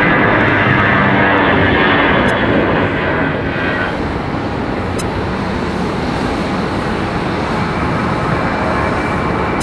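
Airbus A320 airliner jet engines running loudly. A high whine fades about four seconds in, leaving a steady rumble.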